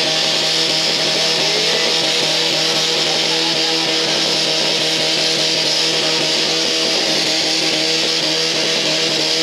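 Portable fire pump's engine running steadily at high revs while it feeds two hose lines at full pressure, over a constant hiss.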